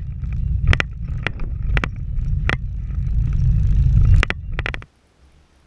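Car driving on a village road, heard from inside the cabin: a steady low rumble of engine and road noise, broken by several sharp knocks and rattles. The sound cuts off abruptly near the end.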